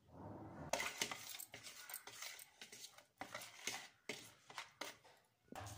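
Metal spoon stirring a yogurt and spice mixture in a bowl, with repeated irregular clinks and scrapes against the bowl.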